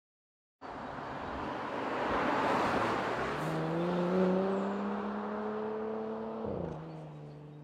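Porsche Macan S's 3.0-litre V6 accelerating over a broad rushing noise, its note climbing steadily, then falling away sharply near the end.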